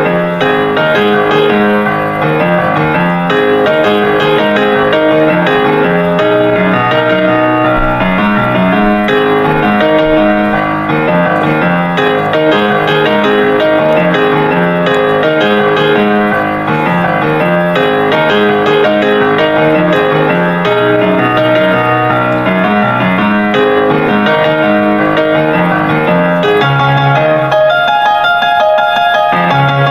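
Background piano music, a busy run of notes.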